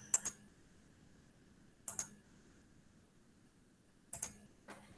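A handful of short, faint clicks from computer keys and a mouse, spaced a second or two apart, over quiet room tone.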